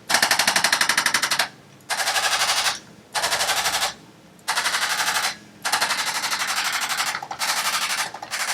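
Handheld electric percussive instrument rapid-fire tapping on tight muscles. It comes in about seven bursts of a second or so, each a fast even rattle of taps, with short pauses between.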